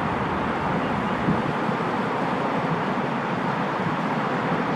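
Steady road-traffic noise, an even rumble and hiss with no distinct events.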